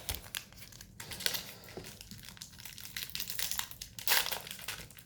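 Trading-card pack wrapper being torn open and crinkled in the hands, a busy crackling rustle that peaks about four seconds in.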